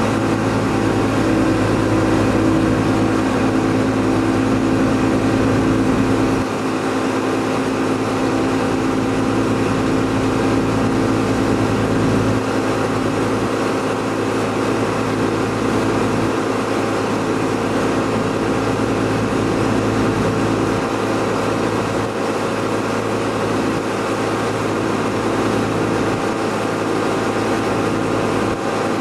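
Tow boat's engine running steadily at high speed, over the constant rush of water and spray.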